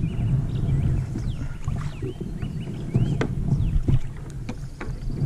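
Low rumble of wind and water around a kayak, with several sharp knocks and small birds chirping in short rising and falling calls.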